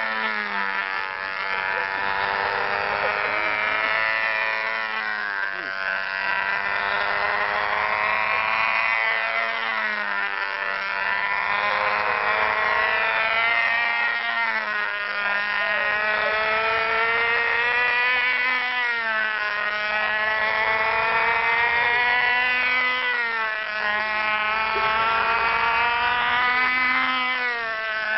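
Webra .20 (3.5 cc) two-stroke glow engine of a control-line model airplane running steadily in flight, a high buzz whose pitch swings up and down about once every four to five seconds as the plane circles on its lines.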